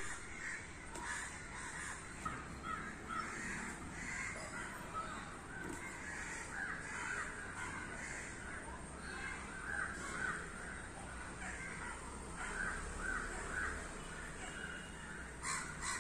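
Repeated harsh caws from birds in the background.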